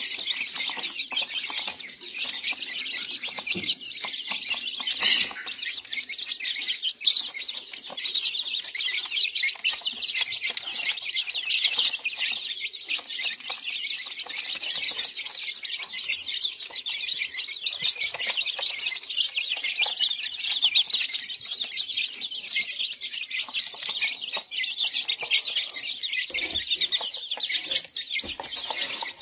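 A brood of silkie chicks peeping nonstop, many high-pitched chirps overlapping into a dense chorus.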